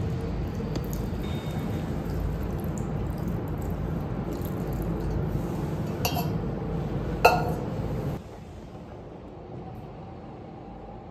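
Metal watering can clinking twice over a steady background rumble, about six and seven seconds in. The second clink is sharp and rings briefly. The background drops to a quieter hush about eight seconds in.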